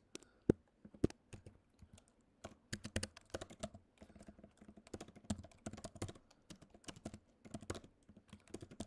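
Typing on a computer keyboard: a few separate keystrokes in the first couple of seconds, then irregular runs of quick key clicks.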